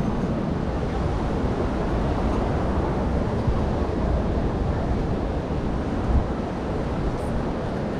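Steady rushing of sea surf and wind, heaviest in the low end, with wind buffeting the microphone and one brief thump about six seconds in.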